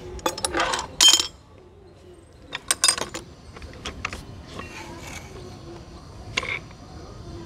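Metal clinks and clanks of an 18-inch pipe wrench being handled and set against a metal ball valve. They come in short bursts: in the first second or so, again about three seconds in, and once more after about six seconds.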